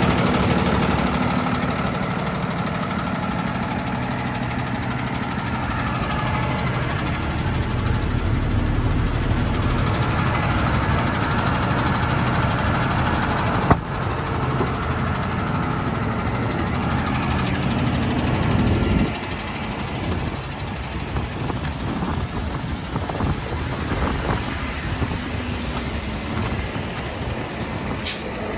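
Diesel engine of a Freightliner M2 truck idling steadily. A single sharp click sounds about 14 seconds in, and the low engine sound drops away about 19 seconds in.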